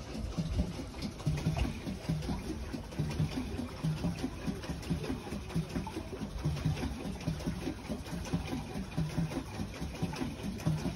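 A pedal boat's paddle wheel churning the water as it is pedalled, a low, uneven beat about twice a second under a steady wash of water noise.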